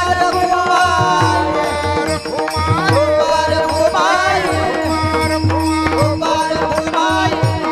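Devotional bhajan music: an ornamented, wordless sung line glides up and down over a steady held drone note, with rhythmic hand-drum strokes underneath.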